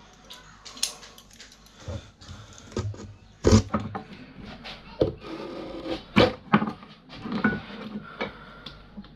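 Irregular clicks, knocks and rustling from hand work with a utility knife and scrap wire, with the two loudest knocks about three and a half and six seconds in.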